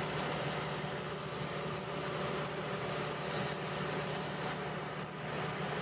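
Steady machinery noise with a constant low hum running underneath.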